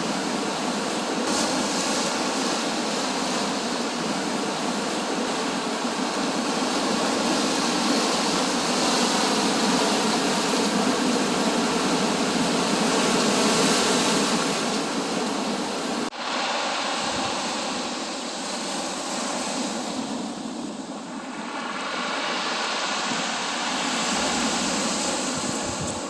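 Sea waves breaking and washing ashore: a continuous rush of surf that swells and eases, with an abrupt change about two-thirds of the way through to a slightly softer, duller stretch.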